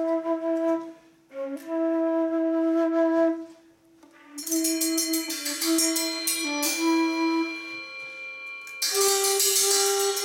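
Transverse flute playing long held low notes, with short breath pauses between phrases. From about four seconds in, cymbals and other metal percussion are struck and left to ring under the flute, with a second, brighter strike near the end.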